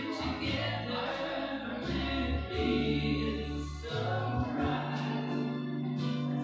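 A song playing: singing voices over a bass line, its low notes held and changing every second or two.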